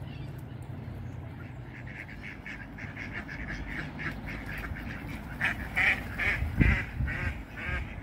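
Ducks quacking in a fast run of short calls, several a second, starting about two seconds in and getting louder in the second half, with a low thump about two-thirds of the way through.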